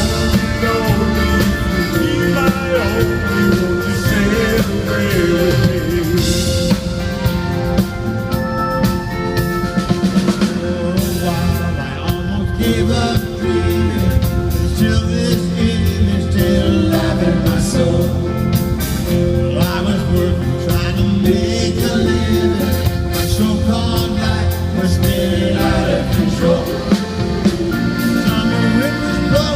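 Live band music, drum kit and other instruments playing between the song's verses, with some singing.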